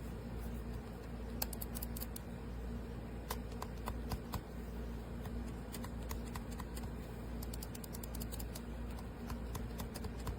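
Light plastic clicks of the Redragon M908 gaming mouse's buttons being pressed, in irregular quick runs of several clicks, over a steady low hum.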